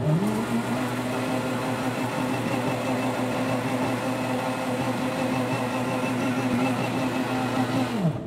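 Kuvings high-speed blender motor spinning up, running at a steady high pitch while blending soaked sea moss into gel, then winding down near the end as its timed program finishes.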